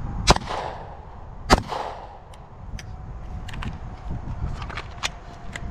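Two pistol shots from a SIG P320 X-Compact, about a second and a quarter apart, each followed by a short echo. Lighter scattered clicks and knocks come after them.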